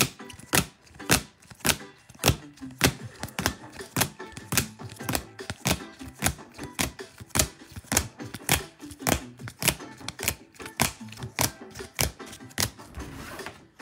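Hard plastic card cases clicking against one another as a stack of cased trading cards is flipped through one at a time, a quick, even run of about two to three clicks a second.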